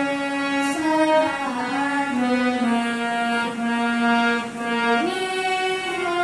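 Bina harmonium playing a melody: sustained reedy notes that move step by step from one pitch to the next, with a jump up to a higher held note about five seconds in.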